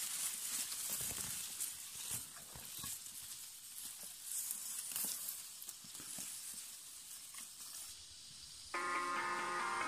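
Dry, ripe rice stalks rustling and crackling as they are handled in hand harvesting, over a steady faint hiss. Music comes in near the end.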